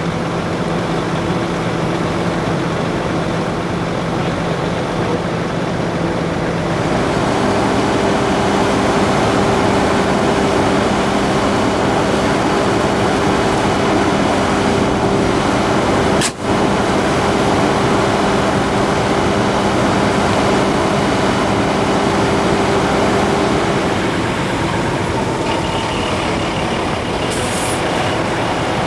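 Fire truck engine running steadily under a haze of noise. Its note steps up about seven seconds in and drops back near the end, with a brief dropout about halfway through.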